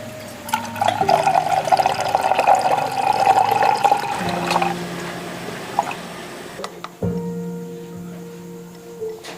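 Liquid being poured, a dense splashing stream lasting about four seconds, over background music with held notes.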